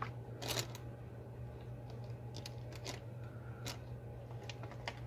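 Scattered light clicks and taps of makeup brushes being handled while one is picked out, over a steady low hum.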